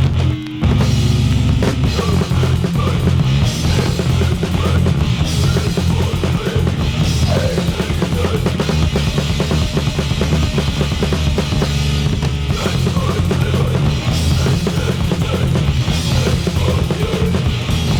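Loud heavy rock recording: a drum kit pounding over thick bass and guitar, kicking in abruptly at the start and carrying on at full force.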